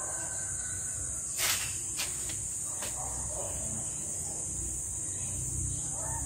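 Steady high-pitched insect chorus, with a few sharp cracks from the wood fire: one loud crack about a second and a half in and smaller ones soon after.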